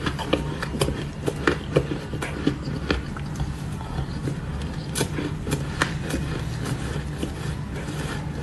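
Shaved ice being chewed and crunched in the mouth, close to the microphone: irregular sharp crunches and crackles, several a second, over a steady low background hum.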